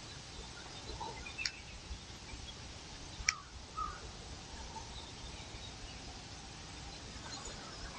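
Quiet woodland ambience with a few faint bird calls and one sharp click a little over three seconds in.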